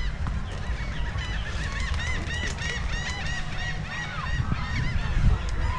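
A gull calling: a rapid series of short, sharp, repeated notes a couple of seconds long, over a steady low rumble.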